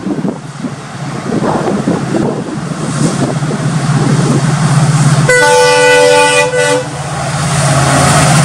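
WDP-4D diesel-electric locomotive's EMD two-stroke engine running under power as the train approaches at speed, a steady low drone growing louder. About five seconds in, its air horn sounds for about a second and a half, then the rumble of the passing train continues.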